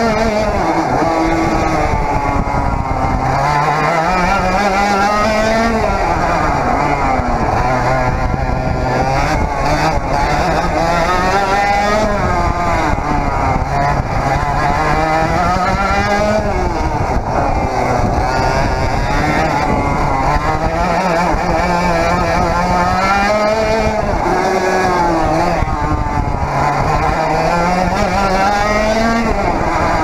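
100cc Parilla reed-valve two-stroke kart engine at racing speed, heard from the driver's seat. Its pitch climbs in long sweeps and drops back again and again, about every five to six seconds, as the kart accelerates and then backs off for the corners.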